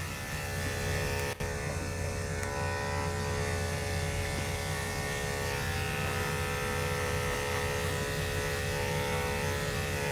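Corded electric dog grooming clippers with a #10 blade running steadily, a continuous motor hum as they shave through a puppy's tightly matted coat.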